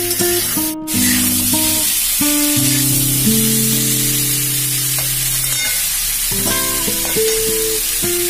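Pumpkin and potato pieces sizzling in hot mustard oil in a kadai, under background music of held, changing notes. A brief dropout just under a second in.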